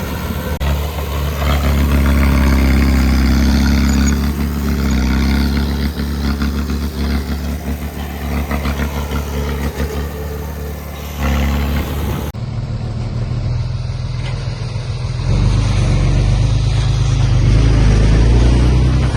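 Heavy earthmoving machinery's diesel engine running under load, loud and continuous. The sound changes abruptly about twelve seconds in, to a deeper, duller engine sound.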